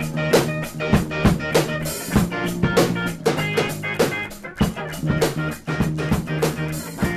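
Background music with drums and guitar and a steady beat.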